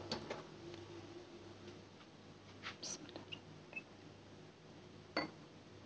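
Faint knocks and clicks as a metal cezve of freshly brewed Turkish coffee is lifted off the gas stove grate and carried to a glass cup, over a low steady hum. The knocks come a few times, about a third of a second in, around three seconds in, and near the end.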